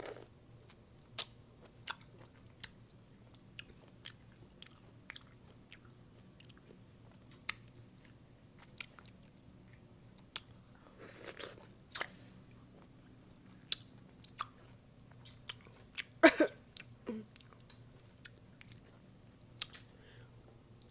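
A person chewing and biting into juicy sour pickles close to the microphone: irregular wet crunches and mouth clicks, with a few louder bites about halfway through and again about three-quarters of the way in.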